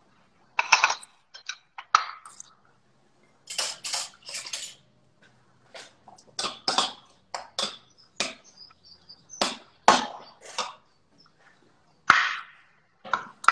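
Kitchen knife chopping red chili on a wooden cutting board: irregular knocks of the blade against the board, coming in small clusters.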